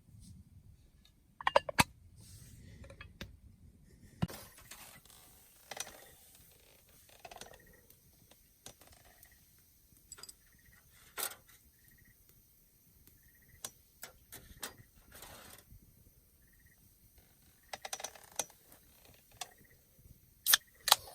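Scattered clicks, knocks and light clatter of small hard objects being handled, loudest in quick clusters about a second and a half in and again near the end. Faint short high chirps repeat in the background.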